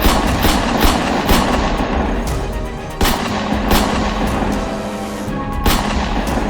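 Dubbed video-game-style gunshot sound effects: single loud shots with echoing tails, irregularly spaced, several close together in the first second and a half and a few more after. Background music plays under them.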